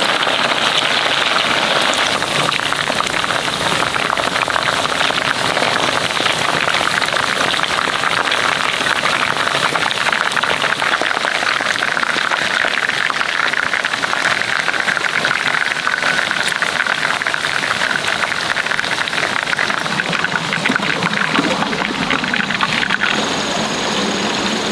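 A steady, dense crackling hiss that changes in character about 23 seconds in.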